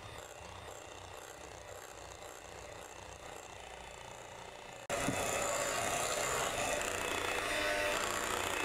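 Electric hand mixer running steadily, its beaters whisking cake batter in a glass bowl; the whir gets abruptly louder about five seconds in.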